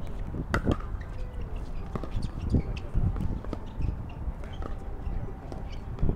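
Pickleball rally: a plastic ball popping off hard paddles in a string of sharp hits, roughly every half second to a second.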